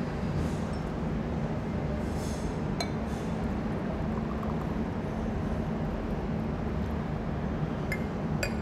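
Brewed coffee poured from a glass server into a ceramic cup, with a few light clinks of glass against the cup, over a steady low rumble.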